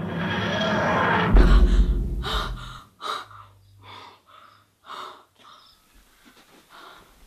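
A swelling whoosh with a deep rumble, the film's time-travel effect, cuts off abruptly about three seconds in. A girl then gasps for breath in short, heavy breaths about once a second.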